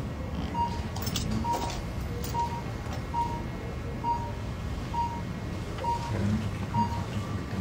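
A short, high electronic beep repeating about once a second over a steady low hum, with a few light scrapes about a second in.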